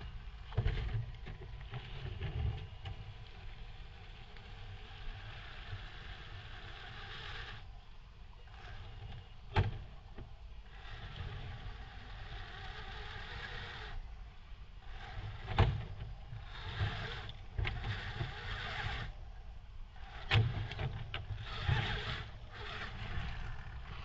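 Axial scale RC rock crawler driving over creek rocks: its electric motor and gears whine in stretches of a few seconds as the throttle comes on and off, with several sharp knocks of tires and chassis against rock.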